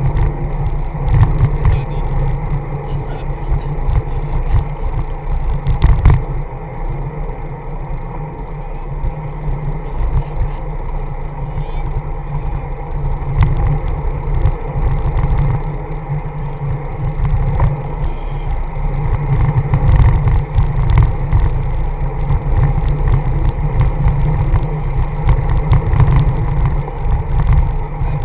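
Wind buffeting the microphone of a camera on a moving road bike, a loud low rumble that swells and eases throughout, with road and tyre noise under it and a few faint ticks.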